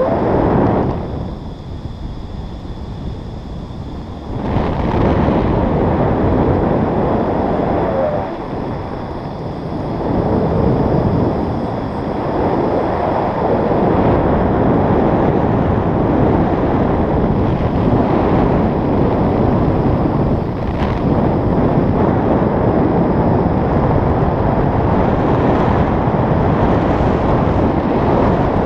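Wind buffeting the microphone of an action camera held out in the airflow of a paraglider in flight: a loud, continuous rushing noise that eases off briefly about one to four seconds in and again around eight to ten seconds in.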